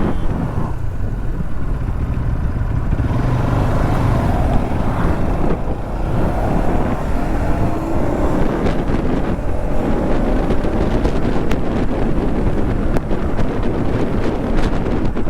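Motorcycle engine running while riding slowly in traffic, its pitch rising and falling with the throttle, with wind buffeting the microphone.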